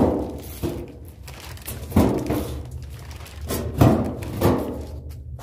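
Handling noise from a plastic-wrapped sheet-metal body panel: four rustling thumps spread over a few seconds, the first the loudest, over a steady low rumble.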